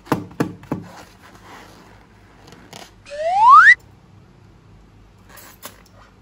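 A single whistle-like tone sliding smoothly upward in pitch for under a second, about three seconds in, as in a cartoon rising-whistle effect. It is preceded by a few quick clicks or taps in the first second, and a couple of faint clicks come near the end.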